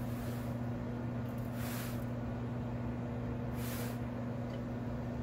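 PETKIT Pura X self-cleaning litter box running its cleaning cycle: a steady motor hum as the drum turns and pushes the litter through. Two brief hissing swishes come about two and four seconds in.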